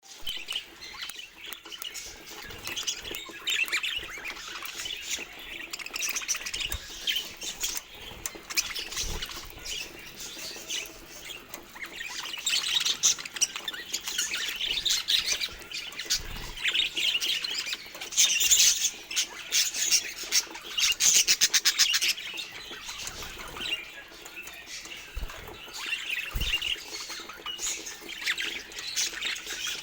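Pet budgerigars chirping and chattering continuously in quick, busy calls. About two-thirds of the way in there is a fast run of sharp ticks.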